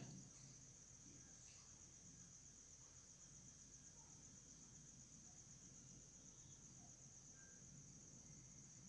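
Near silence, with the faint, steady high-pitched trill of crickets.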